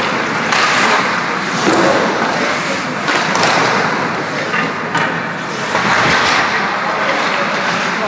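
Ice hockey game in an indoor rink: a steady wash of rink and crowd noise, broken by several sharp knocks of sticks and puck against the ice and boards.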